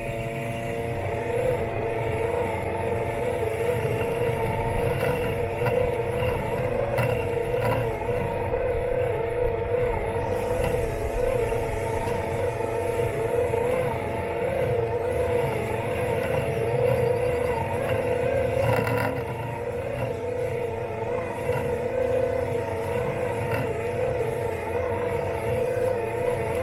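Robot lawn mower's electric motors whining steadily close up, a humming tone wavering slightly in pitch, over the low rumble of the mower working through grass.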